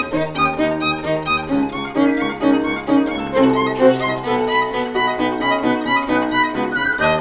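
Violin playing a melody over piano accompaniment, the notes changing several times a second.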